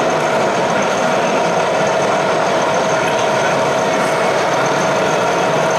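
Steady diesel-engine idle, most likely the sound module of a radio-controlled Fendt tractor model, running evenly with a constant hum over the busy noise of an exhibition hall.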